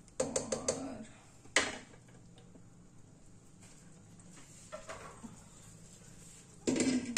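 A plastic spatula clicks and knocks against a metal karahi of chicken: a quick run of taps in the first second, then one sharp knock about a second and a half in. Only faint low noise follows.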